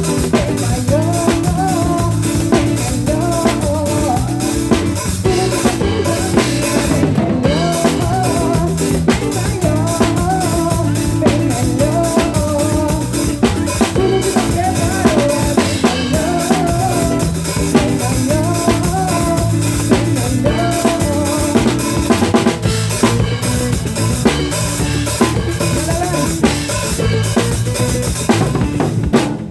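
Live pagode band music driven by a drum kit, with snare rimshots and kick drum hitting in a steady groove under a bass line and a wavering melody.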